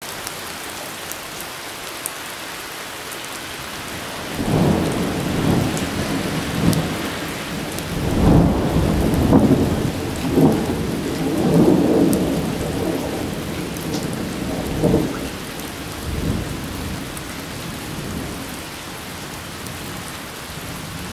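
Heavy rain falling steadily, with raindrops ticking. A long rolling peal of thunder begins about four seconds in, is loudest around the middle, and rumbles away near the end.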